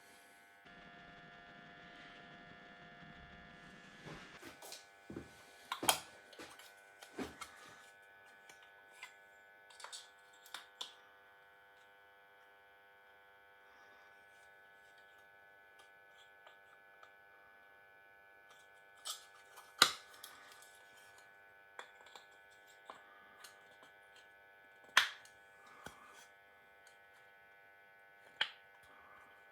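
A small metal lathe's motor running with a steady whine. Light clicks and knocks of metal parts sound through it, three of them sharper and louder. For the first few seconds a rougher rushing noise lies under the whine.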